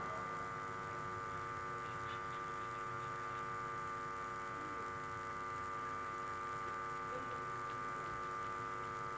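Steady electrical hum from a public-address sound system: several fixed tones held unchanged under a faint background hiss.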